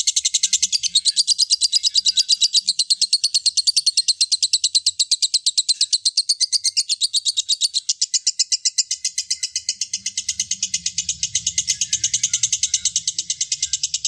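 Lovebird singing a long, unbroken trill of fast high chirps, about seven a second, which cuts in suddenly at the start.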